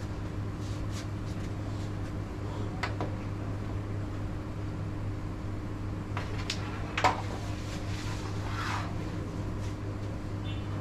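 A carrom striker flicked across the board, hitting the pieces with one sharp click about seven seconds in, after a few lighter taps. A steady low hum runs underneath.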